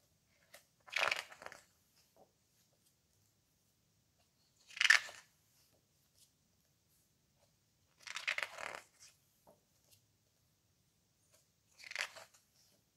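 Pages of a hardcover photobook printed on heavy coated paper being turned by hand: four separate short papery swishes, a few seconds apart.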